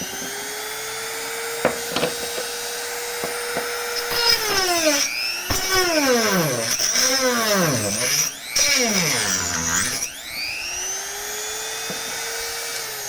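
Small handheld rotary tool with a saw blade cutting into PVC pipe. Its high motor whine holds steady at first, then sags and recovers in pitch several times through the middle as the blade bites into the plastic, with a few sharp clicks.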